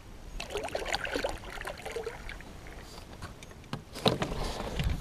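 A kayak is paddled into a creek bank and handled at the edge: water sloshing, with scattered knocks and scrapes on the hull. The loudest knock comes about four seconds in, as the gear in the boat is moved.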